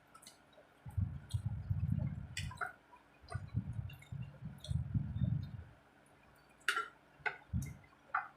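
Close-up eating sounds: chewing of rice and curry, with repeated dull low thumps and sharp wet clicks and smacks of lips and fingers.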